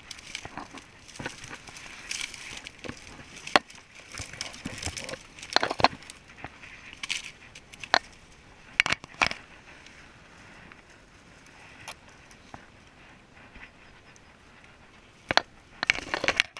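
Dry weeds and brambles crackling and snapping as a person pushes through them, with irregular sharp snaps and rustling against the camera and clothing. The sound is quieter for a few seconds in the second half.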